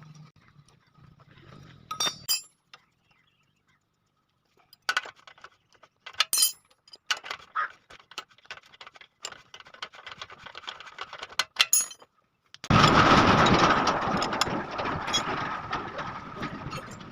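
Metal tools and parts clinking and clicking in short, scattered knocks while a motorcycle's rear wheel and brake are adjusted. About thirteen seconds in, a loud, steady rushing noise starts suddenly and fades slowly.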